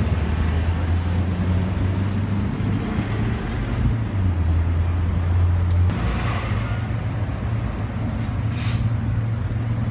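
Steady low drone of an idling motor vehicle engine.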